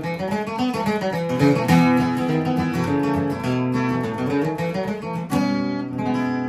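Solo acoustic guitar playing the song's closing instrumental run of picked notes, then a final chord struck about five seconds in and left ringing as it fades.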